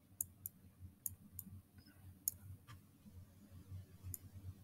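Computer mouse buttons clicking as strokes are drawn: several short sharp clicks, some in pairs a fraction of a second apart, over a faint low hum.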